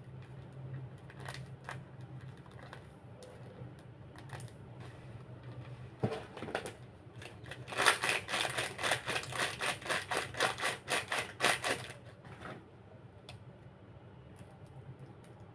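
A quick run of sharp clicks, about five a second for roughly four seconds in the middle, with scattered single clicks before and after.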